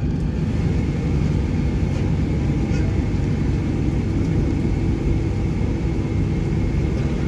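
Steady low rumble of a Boeing 757-200 on the ground, with a faint, steady high whine over it.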